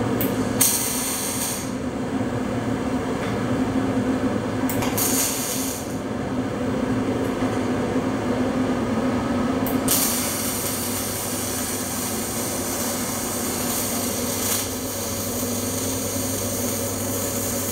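Gas metal arc (MAG) welding arc at about 150 amps, hissing and crackling. Two short tack welds of about a second each, near the start and about five seconds in, are followed by a continuous weld seam from about ten seconds in.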